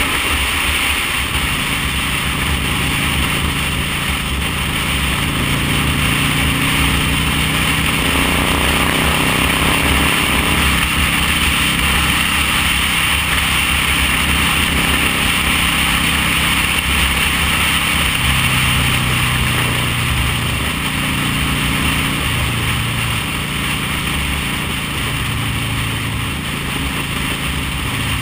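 V-twin cruiser motorcycle engine running at road speed, with wind noise on the microphone. The engine note shifts up and down a few times in the second half.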